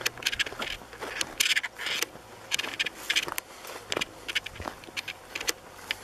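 Footsteps crunching and rustling through dry grass and dirt: an irregular run of short scratchy crackles.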